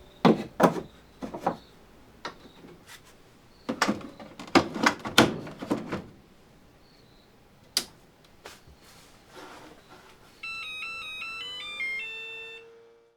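A series of sharp knocks and thunks over the first six seconds, one more a little later, then a short electronic melody of stepped beeps that cuts off suddenly near the end.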